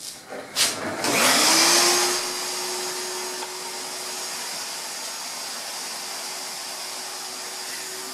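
Two short knocks, then a vacuum cleaner switched on about a second in: its motor rises in pitch up to speed and then runs steadily.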